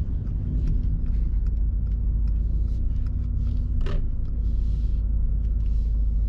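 Cabin sound of the 2024 Mercedes-AMG GT 63's 4.0-litre twin-turbo V8 and tyres while driving at city speed, a steady low rumble. A steady hum sits over it and stops at a sharp click about four seconds in.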